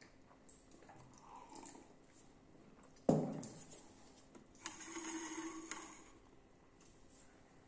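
Quiet room with a single sharp knock about three seconds in, the loudest sound, then about a second of rushing, hissing noise.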